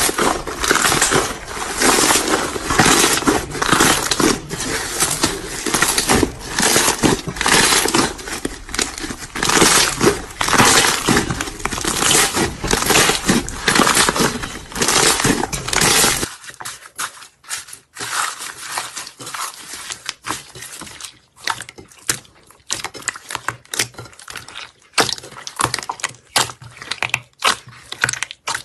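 Close-miked ASMR crunching and crackling, dense and continuous, that cuts suddenly about sixteen seconds in to sparser, quieter clicks and crackles.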